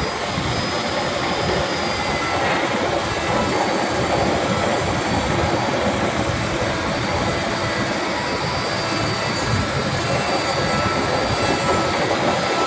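Handheld electric wood router (12 mm, 1850 W) running steadily at full speed while its bit cuts a flower outline into a wooden panel: a constant motor whine over the noise of the bit chewing through wood.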